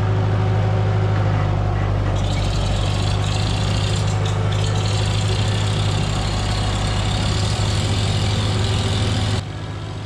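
Farmall Super A tractor's four-cylinder gasoline engine running steadily with a deep, even hum; a brighter hiss joins about two seconds in, and the sound cuts off suddenly near the end.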